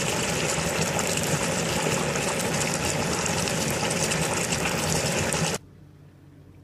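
Hot oil bubbling and sizzling hard around a whole turkey in a propane turkey fryer pot, a dense steady hiss. It cuts off abruptly about five and a half seconds in, leaving only faint background.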